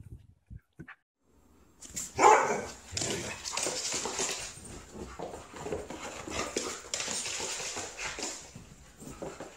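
A husky barking and vocalizing continuously from about two seconds in, loudest at the start of the run.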